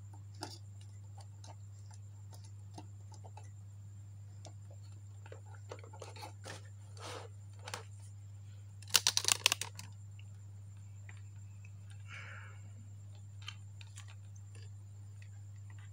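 Scattered small clicks and taps of hands handling parts and tools, with a short loud clatter about nine seconds in and a softer rustle a few seconds later, over a steady low electrical hum.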